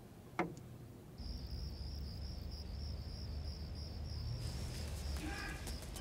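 A brief sharp sound sliding down in pitch about half a second in, then crickets chirping in a steady pulsing high trill over a low hum. Near the end, clicks and other higher tones come in over the crickets.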